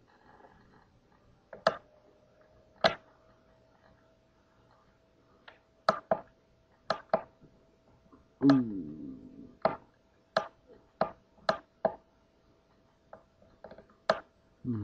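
Computer mouse clicking: about a dozen sharp, irregular single clicks spaced a fraction of a second to a few seconds apart. A brief low vocal hum with falling pitch comes about halfway through.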